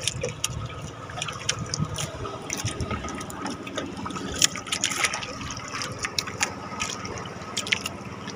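Water lapping and sloshing, with irregular small splashes and clicks, over a faint steady hum.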